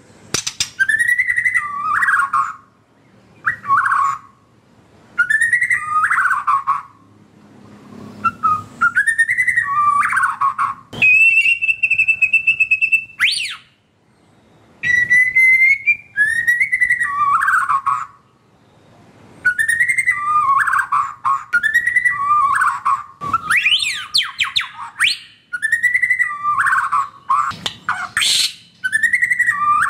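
White-rumped shama singing: loud whistled phrases, many sliding down in pitch and ending in quick high twitters, in bursts of a second or two with short pauses between them. Near the middle is one long, steady whistle.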